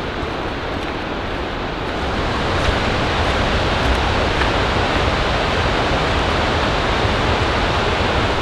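Steady outdoor rushing noise with no distinct events, growing a little louder about two seconds in.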